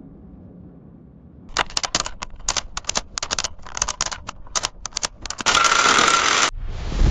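Camera clicks: a run of sharp mechanical clicks in quick, uneven succession, followed by a whirring burst about a second long that cuts off suddenly. A low rumble fades out at the start and another swells in near the end.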